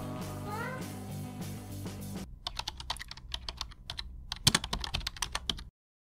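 Background music, then about two seconds in a typing sound effect takes over: rapid, irregular key clicks that cut off suddenly near the end.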